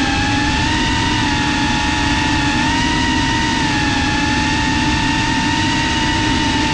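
FPV quadcopter's motors and propellers giving a steady high whine, the pitch rising and dipping a little with the throttle, recorded by the camera on board the drone.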